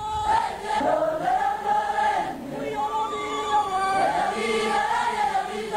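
A large group of voices singing together in a chant-like song, holding long notes that shift pitch from phrase to phrase.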